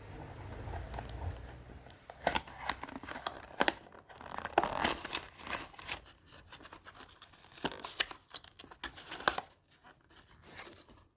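Packaging of a new H4 headlight bulb being opened by hand: irregular crinkling, tearing and crackling of the box and wrapping.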